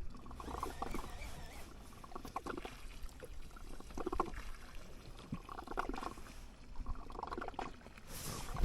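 Faint water lapping and trickling against the hull of a drifting small boat.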